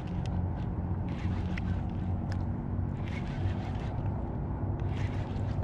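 A boat motor runs steadily at a low, even hum, with light water splashes and small clicks against the kayak on open water.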